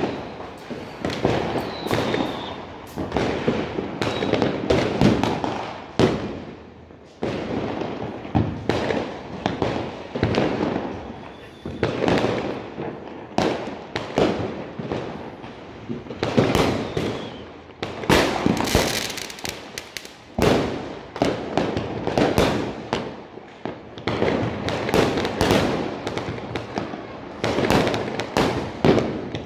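Many fireworks and firecrackers going off across a town: a dense, unbroken run of bangs and crackles, several a second, with a few brief high whistles.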